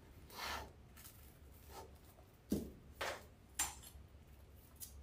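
Faint handling sounds of craft work: a brief brushing rustle near the start, then a soft knock and two sharp clicks around the middle.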